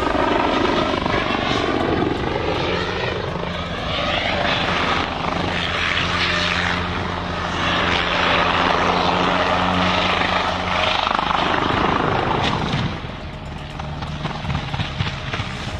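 Helicopter rotor and engine running, a steady loud drone with a sweeping whir in the first few seconds; it drops off noticeably about thirteen seconds in.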